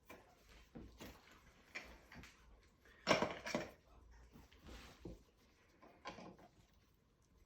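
Light metallic clinks and knocks of tools and clock parts being handled on a workbench, with the loudest cluster about three seconds in.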